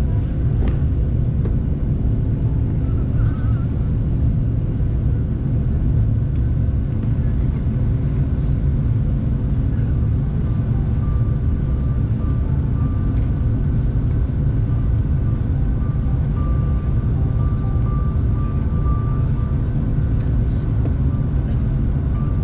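Cabin noise of a Bombardier CRJ1000 climbing after takeoff: a steady, loud rumble of its tail-mounted turbofan engines and the airflow, with a faint high whine coming in about halfway.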